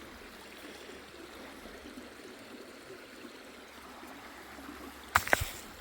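Shallow creek water trickling steadily, faint. A few sharp clicks sound about five seconds in.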